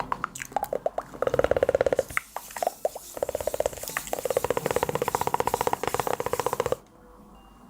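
Rapid tapping on an object as an ASMR trigger: fast runs of quick, hollow-sounding taps that stop suddenly near the end.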